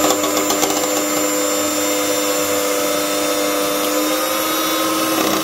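Electric hand mixer running at a steady pitch, its beaters whisking egg whites in a steel bowl until they are frothy like whipped cream.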